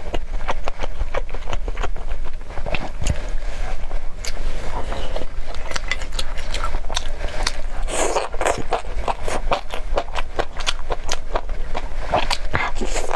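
Close-miked eating of spicy grilled skewers, fried tofu and sausage: chewing and biting, a dense run of quick clicks and smacks, over a steady low hum.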